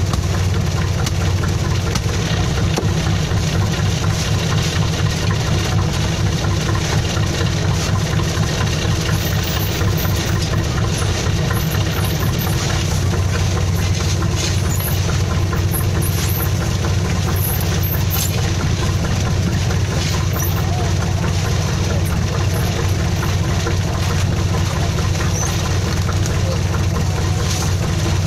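Fishing boat's engine running steadily at idle, a constant low hum.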